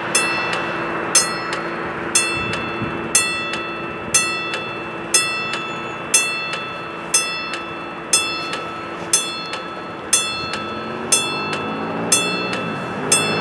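Level-crossing warning bell striking steadily about once a second, each strike ringing on, the warning that a train is approaching. Near the end an engine rises in pitch as a vehicle approaches.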